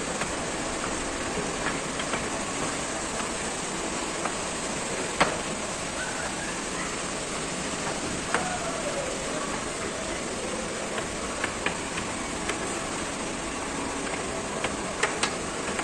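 Steady rushing background noise with scattered sharp knocks and taps from footsteps and bumps on a water-slide tower's stairs; the loudest knock comes about five seconds in, with quick pairs later.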